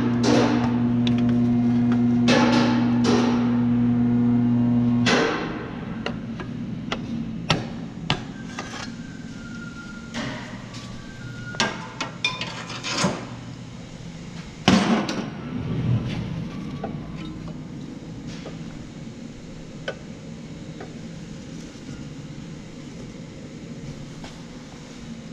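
A steady electric hum for about five seconds that cuts off suddenly, with metal clanks over it, followed by scattered clinks and knocks of hand tools and metal parts being handled, with one louder clatter about fifteen seconds in.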